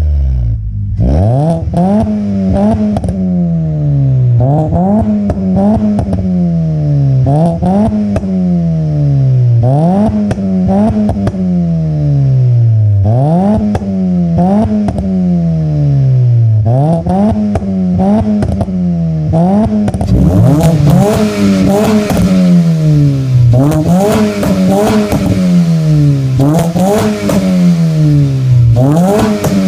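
Kia Rio sedan's engine revved repeatedly through an aftermarket cat-back exhaust: quick blips about every two seconds, each rising sharply in pitch and falling back toward idle. From about two-thirds of the way through the sound turns brighter and raspier.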